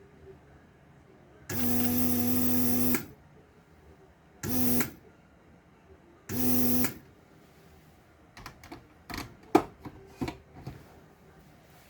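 Small electric motor, an electric screwdriver, whirring in three bursts: one of about a second and a half, then two short ones, driving screws on a Nao robot's torso. Then a series of light clicks and taps, small parts and screws being handled.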